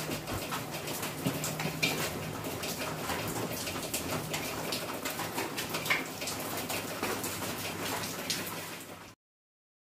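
Light clinks of kitchen utensils and dishes over a steady hiss, with no speech; the sound cuts off suddenly near the end.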